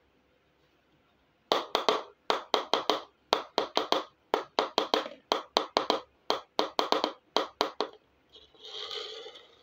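Small plastic miniature kitchen toy pieces being handled: a long run of sharp taps and clicks in quick clusters of two or three, then a short rustling scrape near the end.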